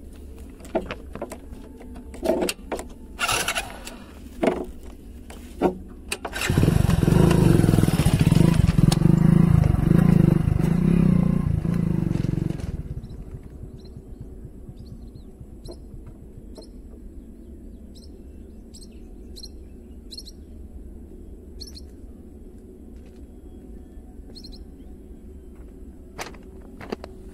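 A motorcycle engine running loud and close for about six seconds, starting about six seconds in and cutting off fairly suddenly. Before it come a few sharp knocks; after it, short high bird chirps repeat.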